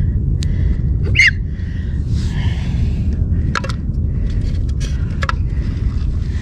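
Steady low wind noise buffeting the microphone, with a few faint clicks and a brief high chirp about a second in.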